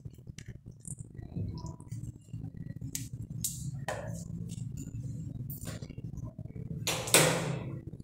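Dark boiled leaf liquid poured from a metal pot onto grated soap shavings in a plastic bowl to soak them, with scattered clinks of spoon and pot and one louder clatter about seven seconds in.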